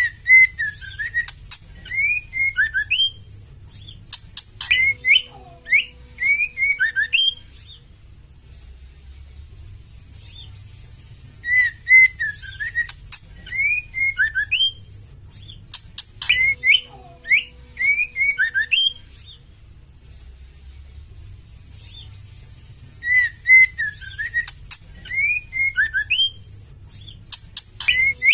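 Female white-rumped shama calling in bouts of about three seconds: short up-and-down whistled notes mixed with sharp ticks and high chatter, with quiet gaps between. The bouts come in pairs that repeat the same pattern about every 11 seconds, a looped recording of the female's challenging call used to stir male shamas into song.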